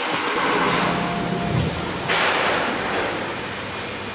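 CNC router spindle running with a steady high whine, its bit cutting through MDF with a continuous rushing hiss that grows louder about two seconds in.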